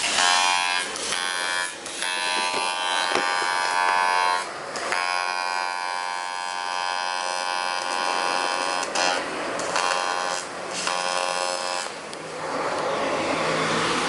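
A buzzing motorised tool running in several short runs, switched on and off, with a hiss in the pauses.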